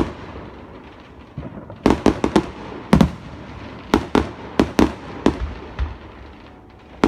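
Fireworks going off: irregular clusters of sharp bangs, several in quick succession, with a lull near the start and a quieter stretch near the end.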